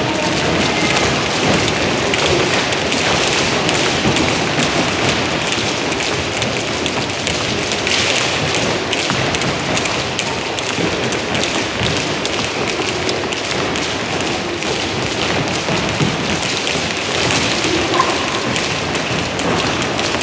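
Several skipping ropes slapping a sports hall floor as children jump, with their feet landing, overlapping into a dense, steady tapping.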